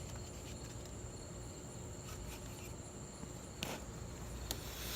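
Faint, steady, high-pitched trill of crickets over low background hum. A couple of soft clicks come about three and a half and four and a half seconds in.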